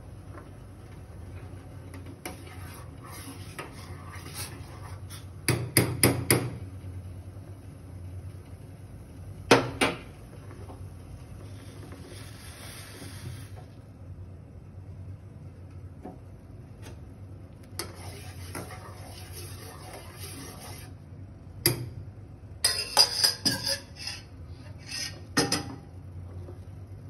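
Milk coming to the boil in a stainless steel saucepan on a gas burner. A steady low rumble runs under stretches of faint hissing. It is broken by sharp metallic clinks and knocks: a cluster about six seconds in, one near ten seconds, and several more in the last six seconds.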